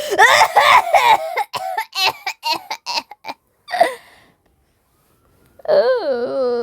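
A person's voice making rapid, broken non-speech vocal sounds for about four seconds, then, after a short pause, a long wavering cry that slides down in pitch.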